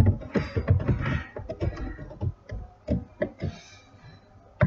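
Computer keyboard typing: irregular keystrokes and clicks, some with a dull low thud.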